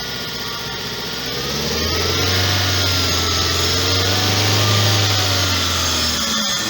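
Suzuki Liana petrol engine running just after a throttle-body cleaning, spark-plug service and tune-up. About two seconds in it speeds up and gets louder, holds there, and then drops back near the end.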